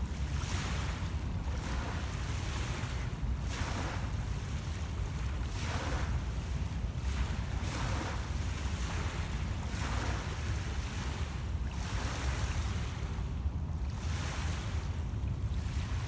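Small lake waves lapping onto a pebble beach, a soft wash of hiss rising and falling every second or two, over a steady low rumble of wind on the microphone.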